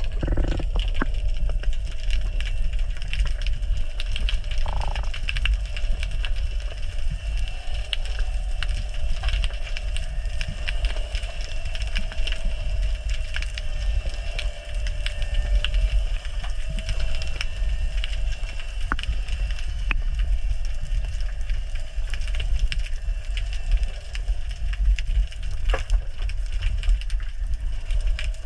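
Underwater ambience through a camera housing: a steady low rumble with scattered crackling clicks and a faint steady hum.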